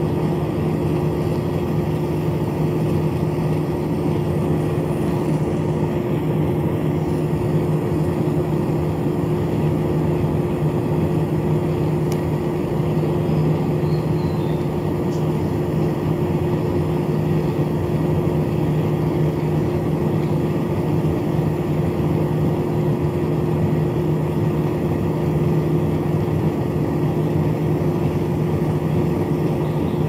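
Small 7.2-volt DC motors driving the fans of a homemade cardboard air conditioner, running with a steady hum and whir.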